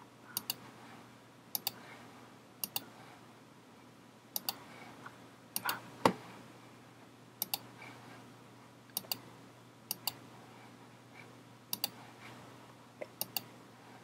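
Faint computer mouse clicks, mostly in quick pairs about once a second, as bricks are picked and placed in a building program, with one louder thump about six seconds in.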